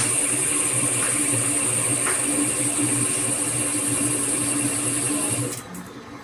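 LEVIL LTC30 compact CNC lathe running, a steady machine hum with a high whine over it, which drops away suddenly near the end.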